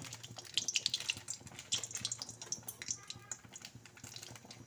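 Whole dried red chillies frying in hot oil in an iron kadai: a steady sizzle with many sharp little pops, densest in the first couple of seconds, then thinning out.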